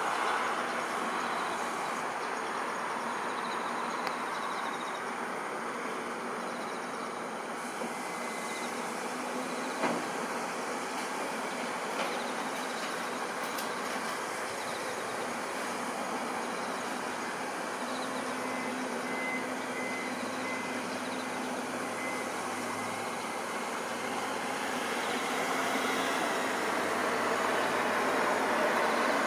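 Steady rushing noise of a distant jet airliner on final approach, swelling over the last few seconds, mixed with city background noise.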